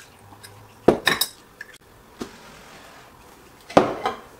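Clinks and knocks of kitchenware as a plastic strainer and a small glass jar are handled, while rinsed water-kefir grains are moved into the jar. The knocks come in two quick clusters, about a second in and again near the end.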